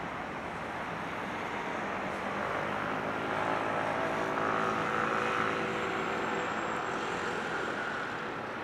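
A passing engine: a droning hum of several steady tones that swells to its loudest about halfway through and fades again, over a steady background of city noise.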